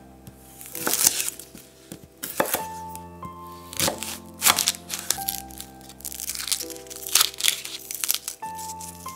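Chef's knife cutting the ends off a shallot and stripping its dry papery skin on a bamboo cutting board: a series of sharp, crisp cracks and crinkling at irregular intervals. Soft background music plays underneath.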